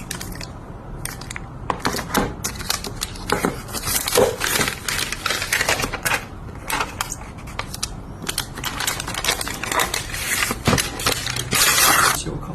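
Phone box packaging being handled and opened: quick irregular clicks, crinkles and rustles, with a longer rasp of noise near the end.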